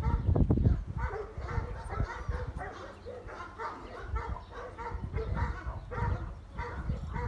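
A litter of Saint Bernard puppies yipping and whining: many short, high calls from several pups overlapping one another. There is low rumbling in the first second.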